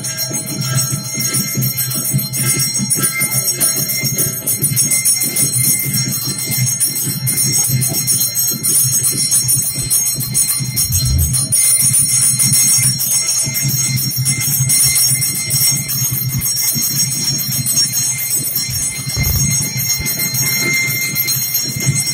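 Temple bells ringing continuously for a Hindu aarti, with music behind them.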